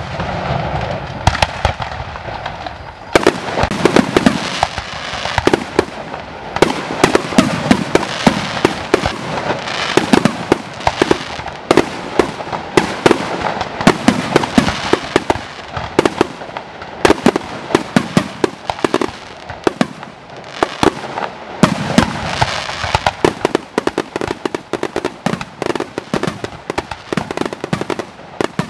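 Fireworks display: aerial shells and ground-level fireworks going off in a rapid, almost continuous barrage of sharp bangs and crackling.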